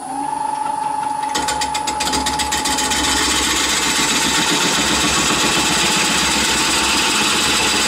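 Wood lathe running at speed with a steady motor whine while a large bowl blank spins; about a second and a half in, a parting tool starts cutting into the wood, a continuous rough scraping that goes on steadily.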